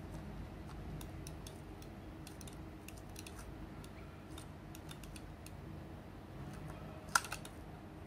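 Fingers pressing and smoothing adhesive grip tape onto the plastic side of a gaming mouse: faint, scattered small clicks and scratchy ticks, with one sharper click about seven seconds in.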